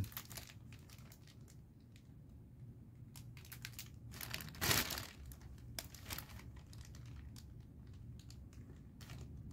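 Plastic packaging crinkling as it is handled: a plastic courier pouch and a clear plastic bag rustling in short, scattered crinkles. The loudest crinkle comes about halfway through.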